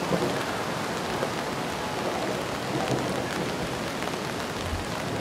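Steady rain falling on a wet stone-paved street, a constant even hiss.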